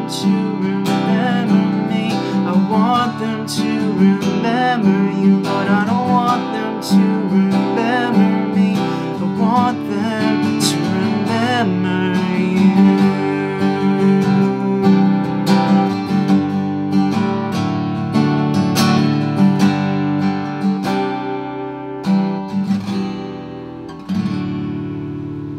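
Acoustic guitar (a Takamine) strummed and picked through the song's closing instrumental. A soft wordless vocal melody wavers over the first half. A last chord near the end rings out and fades.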